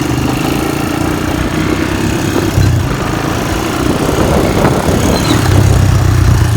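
Four-wheeler (ATV) engine running steadily while being ridden.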